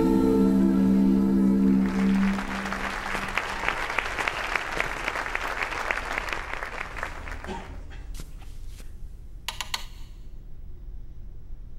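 A held musical chord dies away, and then dense clapping takes over for about five seconds before fading out. A few sharp clicks follow near the end.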